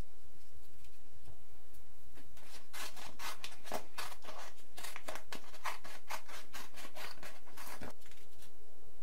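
A quick run of short, crisp cutting or scraping strokes from a hand tool working the material of a homemade rubber-band revolver. It starts a couple of seconds in and stops about a second before the end.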